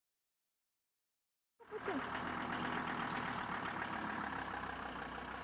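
Silence for about the first second and a half, then a vehicle engine idling steadily.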